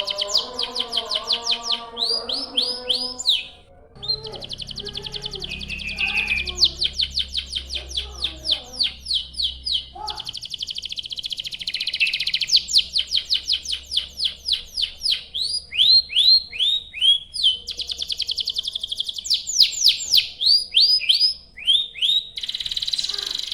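Domestic canary singing a long song of fast rolling trills and rapidly repeated chirps and down-slurred whistles, broken by a short pause about three and a half seconds in.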